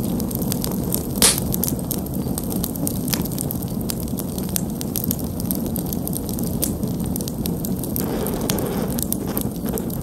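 Wood campfire burning: a steady low rush of flames with scattered sharp crackles from the split kindling, and one louder pop a little over a second in.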